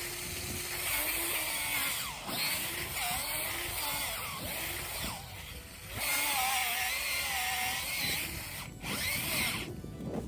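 Cordless drill with a 1-inch spade bit boring into frozen ground, running in spurts with brief stops about 2, 5 and 9 seconds in.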